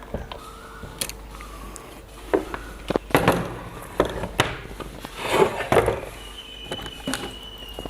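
Clicks, knocks and clattering of small metal parts and tools being handled on a workbench, as clamps are fitted onto the power transistors of an inverter board. The busiest clatter comes in the middle.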